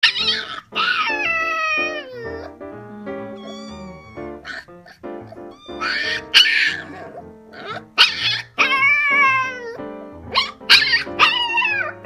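A Bangkaew puppy howling: a series of high, drawn-out cries that fall in pitch, over background music.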